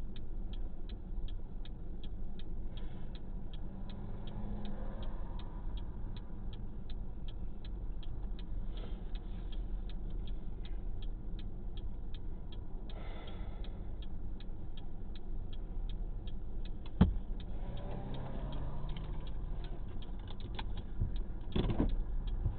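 A car's indicator flasher ticking steadily, about two to three ticks a second, over the low running of the car's engine and road noise. A single sharp click about seventeen seconds in.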